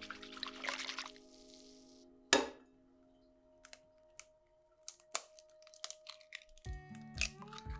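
Kitchen handling sounds over soft background music: a short grainy rustle in the first second, then one sharp knock a little over two seconds in, the loudest sound, followed by a few light clicks. The music drops away after about two seconds and comes back with a beat near the end.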